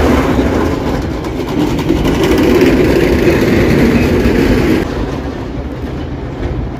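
Vintage tram passing close by, its wheels running on the rails, loudest in the middle and dropping off suddenly about five seconds in as it moves away.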